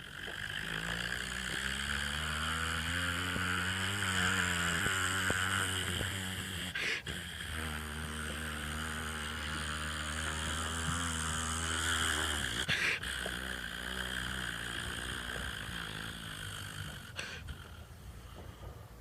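A steady engine-like drone with a hiss above it, rising in pitch slightly at times, that swells about a second in and fades near the end. Two sharp bangs cut through it, about 7 and 13 seconds in.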